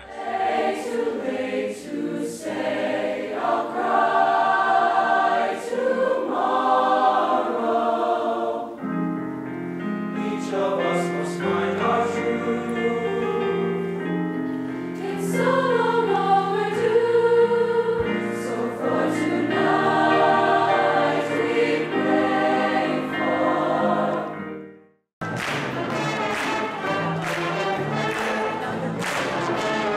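Large mixed choir singing, with sustained chords. About 25 seconds in the sound cuts off abruptly and a massed ensemble of voices with brass starts playing.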